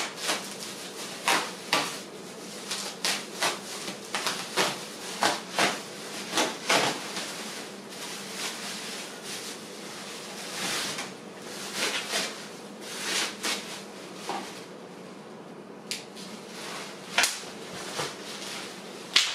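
Irregular handling noises of packaging and parts being moved about: short rustles, scrapes and light knocks, several close together in places, with a quieter stretch past the middle.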